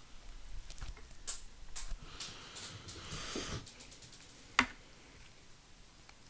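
Slime being worked by hand: sticky squelches and small clicking pops, with one louder sharp snap about four and a half seconds in.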